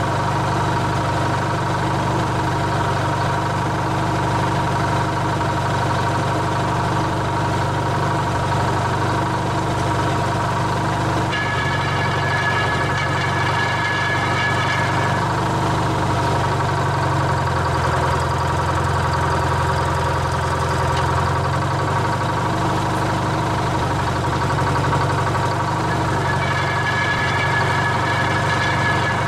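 Old truck crane's engine running steadily at idle. A higher whine rises over it twice, for about four seconds starting about eleven seconds in and again near the end.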